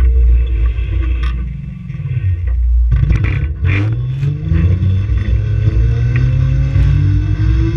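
Onboard an electric race car as it pulls away and gathers speed: the motor and drivetrain whine climbs steadily in pitch from about three seconds in. Under it runs a heavy low rumble of road and wind noise, with a few sharp clatters as it sets off.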